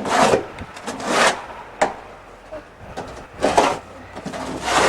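Snow being scraped or swept off steps in short strokes, about four of them roughly a second apart, with one sharp knock of the tool near the 2-second mark.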